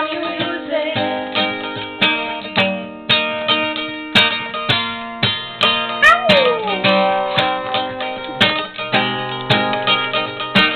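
Steel-string acoustic guitar played solo, chords plucked and strummed about twice a second and left to ring.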